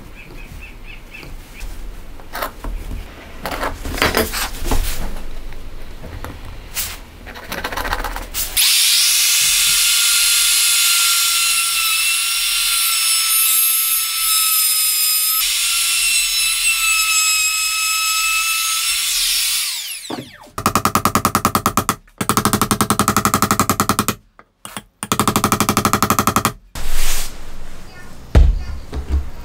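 Makita 18V cordless trim router running at high speed for about eleven seconds, a steady high whine as it cuts wood, stopping abruptly. A Makita 18V drill driver then runs in three short bursts. Light knocks of wood and tools being handled come before and after.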